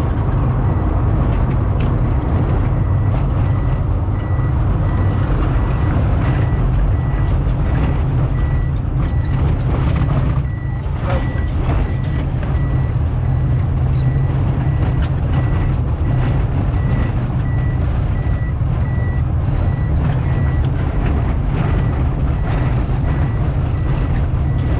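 A motor vehicle running, a heavy steady low rumble with road and wind noise, under a high-pitched electronic beep that repeats at an even rhythm throughout.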